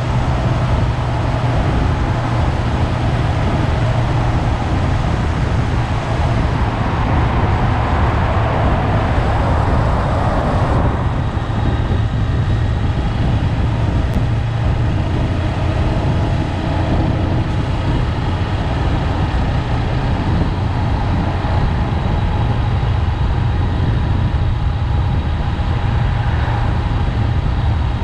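Honda 400X motorcycle's parallel-twin engine running steadily under way, with wind and road noise; a rushing noise swells for a few seconds about a quarter of the way in.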